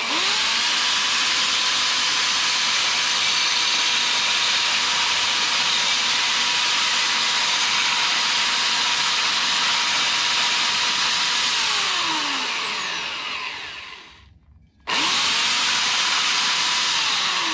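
A high-speed power tool running steadily as it cuts away mounting tabs, with a high motor whine. It winds down with falling pitch, stops for about a second, then starts up again and winds down near the end.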